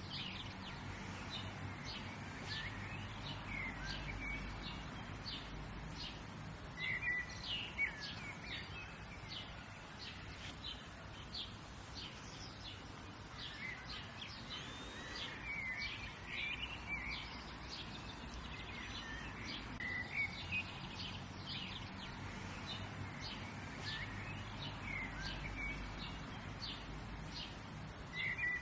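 Birds chirping and calling: many short, high chirps and brief rising and falling notes, with no song repeated, over a steady low background rumble.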